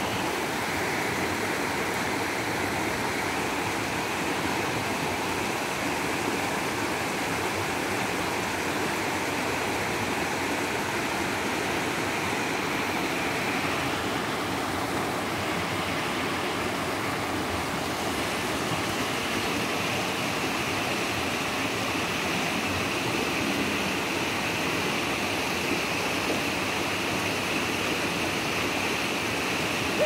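Shallow mountain river rushing over boulders and stones in small rapids: a steady rush of water.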